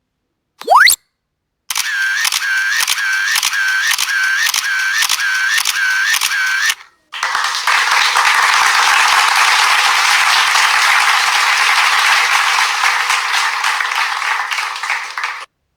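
A series of separate sound effects: a quick rising whistle, then a pulsing tone repeating about twice a second for about five seconds, then a long dense hiss crackling with clicks that cuts off near the end.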